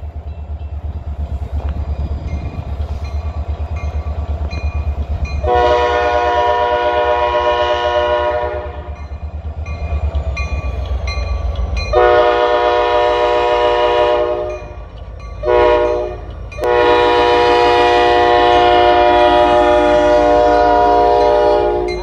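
Nathan K5LA five-chime air horn on an EMD SD40 diesel locomotive sounding the grade-crossing signal: long, long, short, long, the last blast held about five seconds, over the low rumble of the locomotive's diesel. The horns are newly mounted facing the wrong way, which makes them sound oddly less loud.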